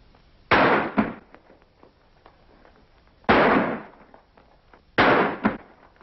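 Five gunshots in three groups: two half a second apart, a single shot, then two more close together, each with a short echoing tail.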